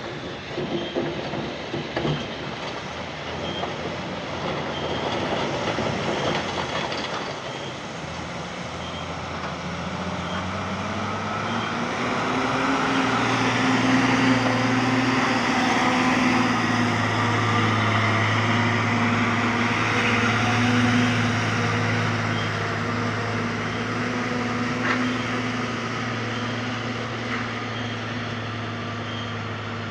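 JCB JS140 tracked excavator's diesel engine running, speeding up about a third of the way in, then holding steady at higher revs.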